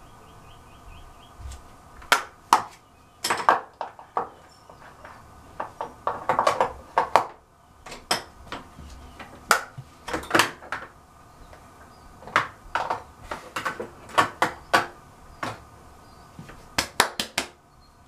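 Irregular sharp clicks, taps and knocks of small hard objects being picked up and set down, coming in clusters of several at a time.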